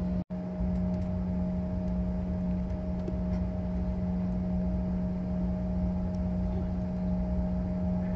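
Steady drone inside a Bombardier CRJ900 regional jet's cabin on the ramp: a low hum with a steady higher tone above it. It cuts out for an instant about a quarter second in.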